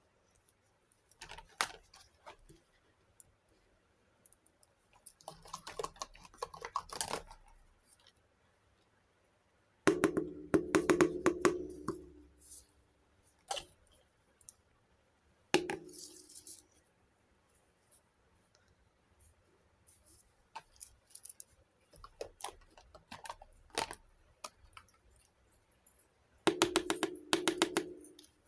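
Small plastic toy kitchen pieces being handled and unpacked: clusters of light clicks, taps and rattles in about six bursts, with quiet pauses between them.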